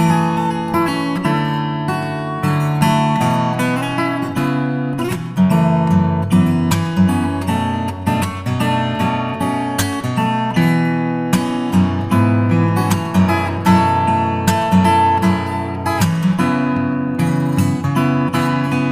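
Background music of acoustic guitar, plucked and strummed, with steady picked notes.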